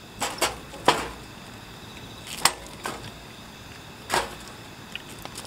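Wood fire in a fire pit crackling, with several sharp pops and snaps as sparks burst from the burning logs.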